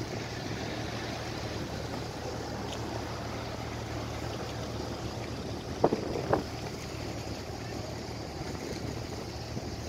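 Steady low hum of a moored Jadrolinija car ferry's engines running, with wind and harbour water noise underneath. Two sharp knocks come close together about six seconds in.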